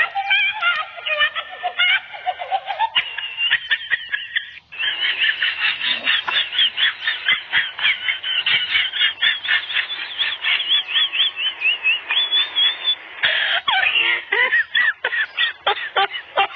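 A fast run of short, high-pitched chirping animal calls, several a second, with a lower, sliding cry in the first few seconds.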